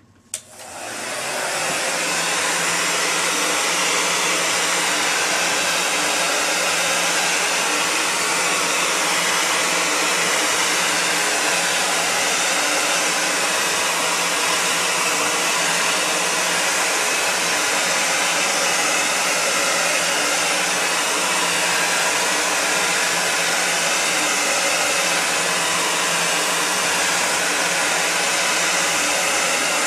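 A 300–500 degree heat-molding gun switches on with a click. Its blower spins up over about a second to a steady rushing hiss with a low motor hum, as it heats the underside of a thermoformable foot orthotic for molding.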